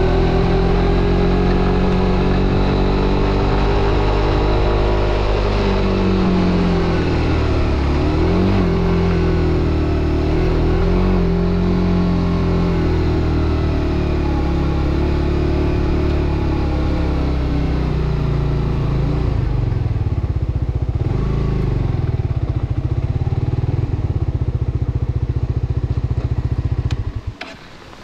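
Suzuki GSX-R125's single-cylinder four-stroke engine running as the bike rides and slows, its pitch rising and falling, then settling to a steady lower idle. About a second before the end the engine cuts off suddenly, leaving a few faint clicks.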